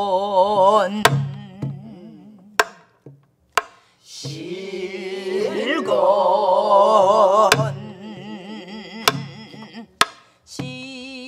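Pansori singing in the slow jinyangjo rhythm: voices holding long notes with a deep wavering vibrato. Sparse sharp stick strokes and low hand thumps on buk barrel drums keep the beat. The singing pauses briefly about three seconds in and swells loudest a little past the middle.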